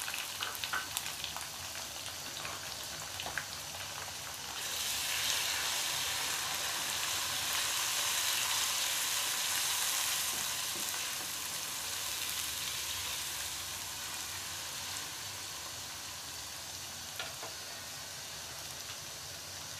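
Freshly added chopped tomatoes, sliced onions and green chillies sizzling in hot oil in a nonstick wok. The sizzle grows louder about four seconds in and stays up for several seconds while the mixture is stirred with a spatula, then settles back to a steady hiss.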